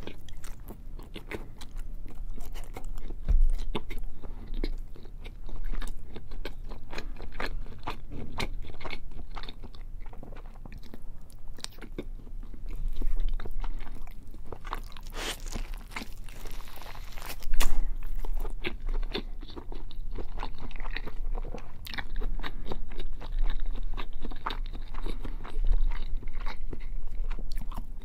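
Close-miked eating sounds: biting into and chewing a thick slab of bacon, many quick, irregular mouth clicks and crunches.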